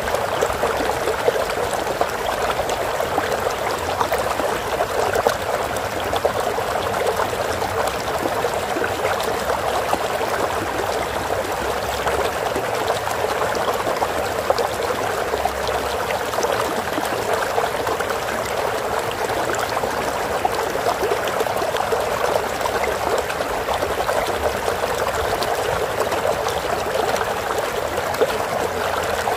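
Shallow stream of water flowing and trickling steadily, a dense even babble of small splashes.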